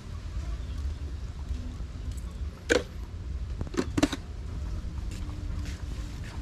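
Steady low rumble on the microphone, with three short sharp clicks: one near the middle and two close together about a second later.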